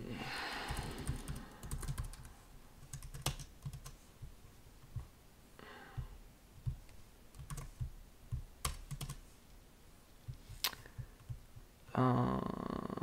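Typing on a computer keyboard: scattered, irregular keystrokes with pauses between them. A person's voice sounds briefly near the end.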